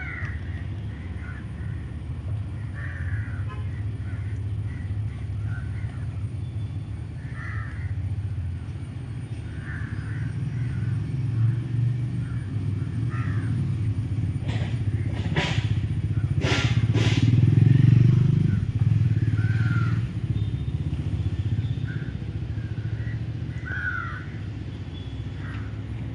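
Crows cawing now and then over a steady low rumble of road traffic, which swells to its loudest about two-thirds through as a vehicle, likely a motorcycle, passes close by. A few sharp clicks come just before that peak.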